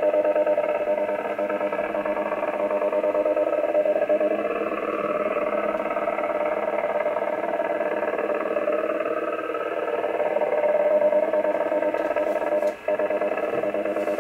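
Steady buzzing, non-speech signal from an Icom IC-7400 receiver tuned to 7.055 MHz lower sideband, heard through the radio's speaker with the narrow, muffled sound of a sideband filter. It drops out for a moment near the end.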